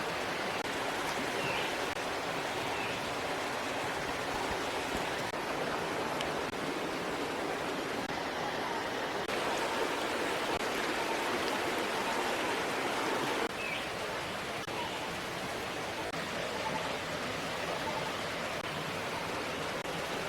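Steady, even rushing noise with a few faint short chirps, and a slight drop in the hiss about two-thirds of the way through.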